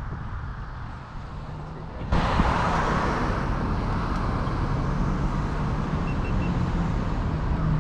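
A vehicle running with a steady low engine hum under wind and road noise, which becomes suddenly louder and brighter about two seconds in. Three quick faint high beeps come a little past the middle.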